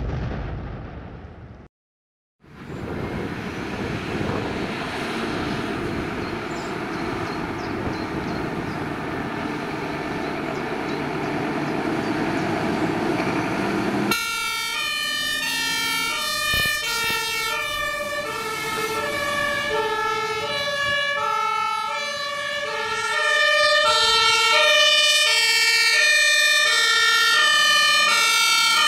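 Scania P 360 fire truck's diesel engine running. About halfway through, a German two-tone siren (Martinshorn) starts, alternating steadily between a high and a low note.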